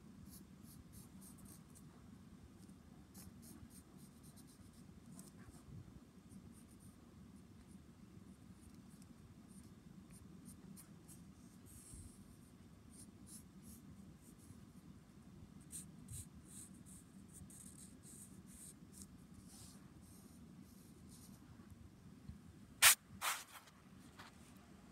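Graphite pencil scratching faintly on paper in short repeated strokes as a drawing is sketched. Near the end come two sharp knocks close together, much louder than the pencil.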